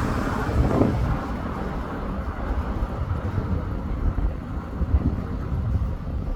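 Coupled JR East E231- and E233-series electric train running past as it leaves the station. Its running noise fades out about a second in, leaving a low rumble with wind buffeting the microphone.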